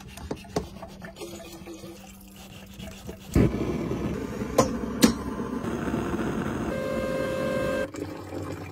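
Water being boiled on a gas stove: water trickles into a metal kettle, then a gas burner comes on with a sudden loud hiss about three and a half seconds in, with two sharp clicks. A steady whistle sounds for about a second near the end before the noise drops away.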